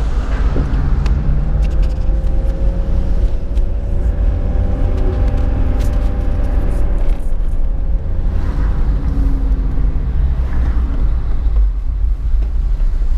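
Car driving, heard from inside the cabin: a steady low rumble of engine and road noise, with a faint hum that bends gently in pitch through the middle.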